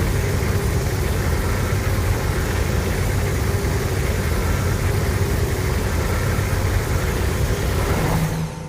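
A steady, loud low rumble with a hiss over it, fading out near the end: a monster sound effect.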